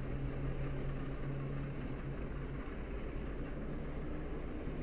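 Diesel locomotive engine running steadily, a low drone that rises slightly in pitch towards the end.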